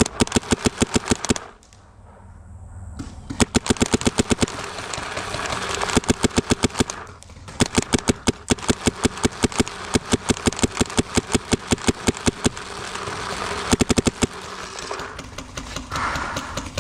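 Paintball marker firing in rapid strings of shots, about eight a second, with short breaks about a second and a half in and about seven seconds in.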